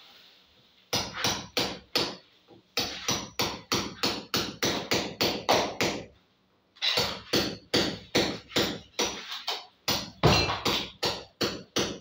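Hammer blows struck on a concrete hollow-block wall, about four a second, in three runs broken by short pauses about two and six seconds in.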